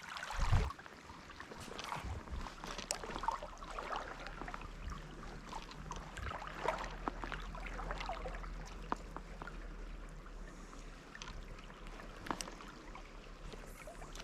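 Trout stream water running, with scattered small splashes and clicks and a louder thump about half a second in.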